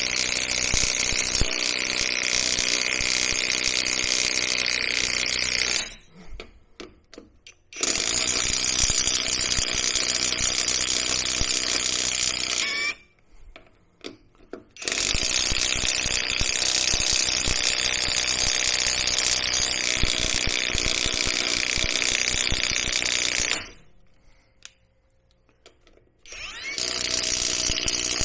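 Neiko 3/8-inch cordless impact wrench hammering on truck lug nuts torqued to 130 foot-pounds, driving them through a 3/8-to-1/2-inch socket adapter. It runs in four long bursts of about five to nine seconds with short pauses between, a fast rattling hammer over a high motor whine, without breaking the nuts loose.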